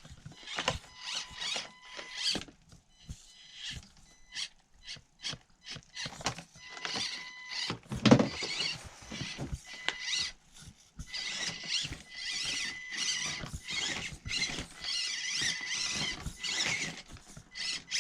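Axial SCX24 Deadbolt micro RC crawler's small electric motor and gears whining high-pitched in stop-start bursts as it climbs, with clicks and knocks of the chassis and tyres on the course. There is one louder knock about eight seconds in.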